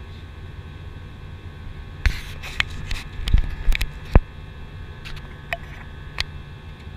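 Airbus A320 cabin noise in flight: a steady jet-engine and airflow drone with a low hum, heard inside the cabin. From about two seconds in, a cluster of sharp clicks and knocks breaks through, the loudest a little past the middle, followed by two fainter clicks near the end.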